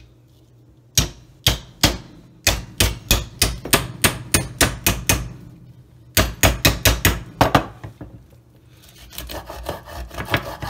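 A black pestle hammering on the spine of a kitchen knife, driving the blade through a pomfret's head into a wooden cutting board: two runs of sharp knocks, about three a second, with a short pause between. Near the end, with the pestle set down, the knife is worked back and forth through the head with a softer scraping.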